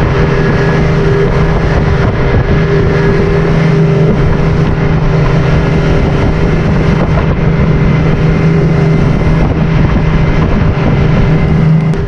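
Boat motor running steadily under way, a constant engine hum over dense rushing noise.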